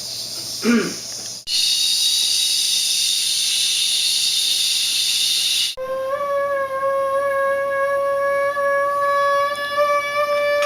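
Whistling tea kettle: a steam hiss that swells loud about a second and a half in, then about four seconds later gives way to a steady whistle that holds.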